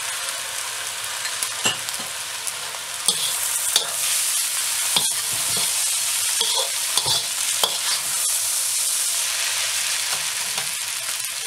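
Rice noodles sizzling in a hot wok while a metal slotted spatula tosses and stirs them, with a steady frying hiss and occasional sharp taps and scrapes of the spatula against the pan.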